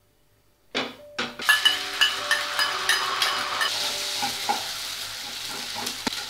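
Egg frying in hot oil in a nonstick pan, sizzling from about a second in, while a steel spatula stirs and scrambles it with repeated light taps and scrapes against the pan.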